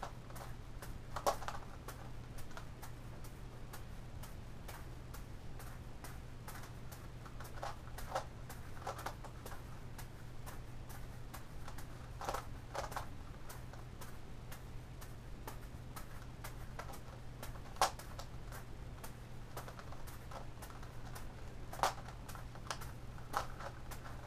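Gigaminx puzzle layers clicking and clacking as they are turned, in irregular runs of small clicks with a few louder clacks. A low steady hum runs underneath.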